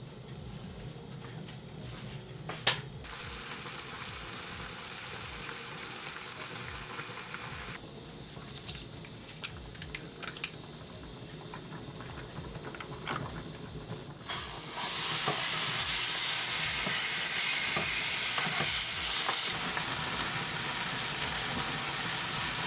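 Scattered clicks and light knocks, then a steady hiss that starts abruptly about two-thirds of the way through and keeps going.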